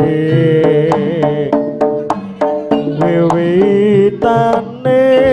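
Live jaranan gamelan music: kendang hand-drum strokes under a held, wavering melody line.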